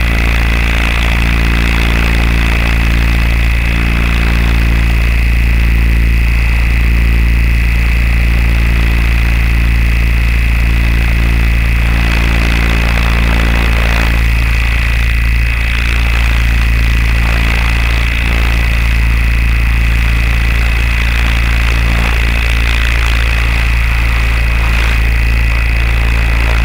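Small engine of an aerial survey aircraft running steadily, close to its onboard camera, with an even pitch and a high steady whine on top.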